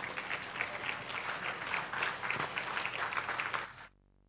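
Audience applauding, a dense patter of many hands clapping, which cuts off abruptly to silence near the end.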